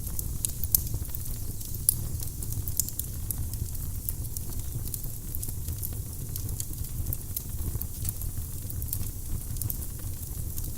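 Firewood burning in a fireplace, crackling with frequent sharp pops over a steady low rumble of the flames.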